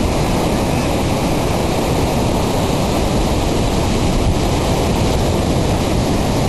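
Loud, steady rushing noise like static, even throughout with no tones or breaks.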